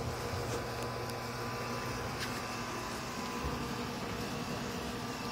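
Steady low mechanical hum with a faint hiss, and a few faint ticks.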